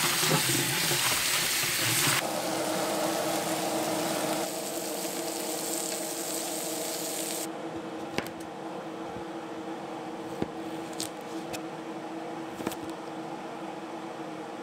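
Tap water running from a kitchen faucet onto spinach in a metal sink strainer, then, from about eight seconds in, a cleaver cutting cucumber on a wooden board in a few separate sharp knocks. A steady faint hum sits underneath.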